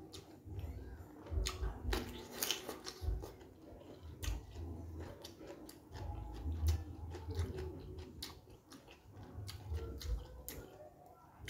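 A man chewing a mouthful of food close to the microphone, with scattered wet mouth clicks and smacks and soft low thuds throughout.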